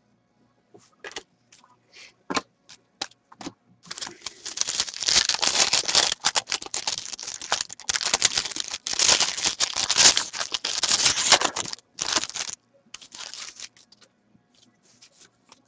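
Foil wrapper of a hockey card pack being torn open and crinkled in the hands, a dense crackle for about eight seconds. Scattered light clicks and taps come before and after it.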